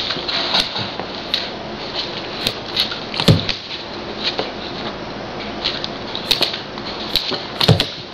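A standard poodle puppy's paws and claws tapping and scuffling on the floor: light scattered taps, with two heavier thumps about three seconds in and near the end.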